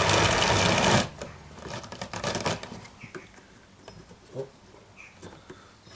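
Hand-cranked homemade drum carder running with a loud, steady rubbing whir that stops abruptly about a second in. Faint clicks, light knocks and two short squeaks follow as the mechanism is handled. The drive is not yet fitted properly, so cranking does not work the carder as it should.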